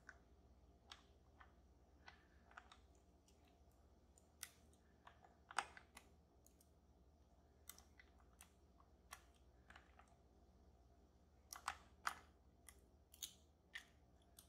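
Faint, irregular small clicks of lock picks working the sliders of an EVVA Dual lock, over a faint low hum.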